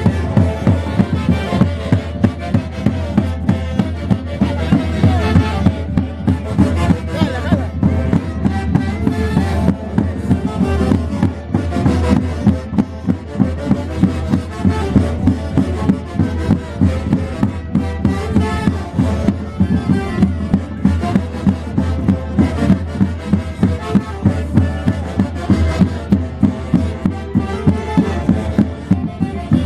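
Live Andean folk orchestra playing Santiago festival music, wind instruments over a steady, driving beat.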